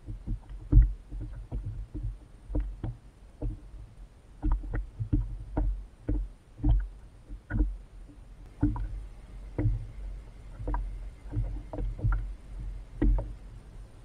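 Water slapping and knocking against a fishing kayak's hull in irregular strokes, one or two a second, each with a low thump.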